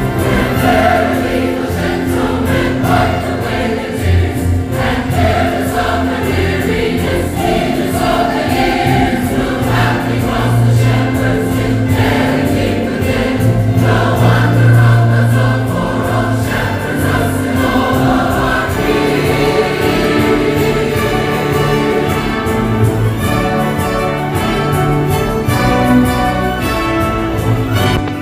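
Choir singing with orchestral accompaniment, steady and full throughout.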